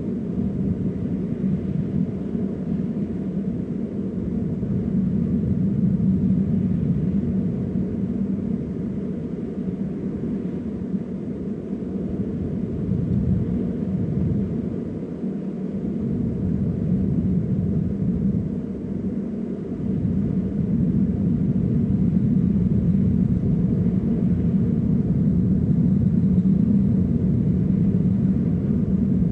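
A steady low rumble throughout, with brief dips in its deepest part about halfway through.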